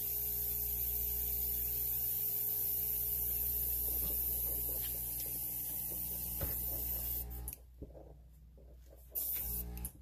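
Airbrush blowing a steady hiss of air over the hum of its compressor, pushing wet alcohol ink across photo paper. The air cuts off about 7.5 s in, followed by one short blast about a second and a half later.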